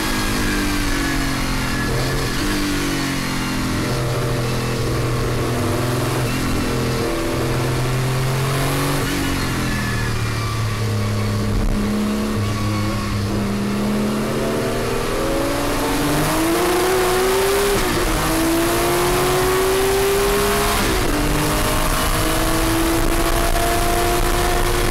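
Porsche 935 'Moby Dick' race car's turbocharged flat-six heard from inside the cockpit at race speed. The note holds fairly steady through the first half, then climbs through the gears with two upshifts about three seconds apart before rising again near the end.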